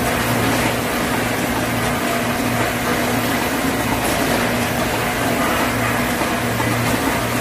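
Automatic rotary pouch-packing machine and the packing line around it running: steady machine noise with a low hum that swells and drops back about once a second.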